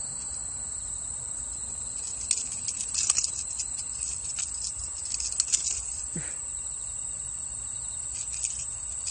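Steady high-pitched chorus of night insects, with a few short clicks and rustles of handling, clustered about two to three seconds in and again about five and a half seconds in.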